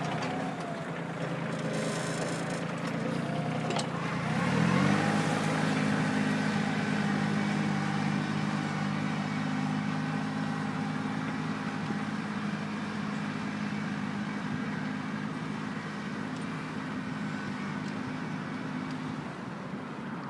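Kioti CK2810 compact tractor's three-cylinder diesel engine running. About four seconds in it revs up, then holds a steady higher speed, easing off near the end.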